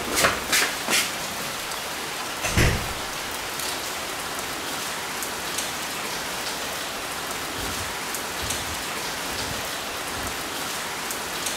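Steady rain, with a few sharp knocks in the first second and one louder, deeper thud about two and a half seconds in.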